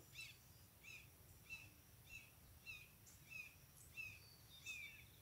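Faint bird calls: one short, slightly falling chirp repeated steadily, about one and a half times a second.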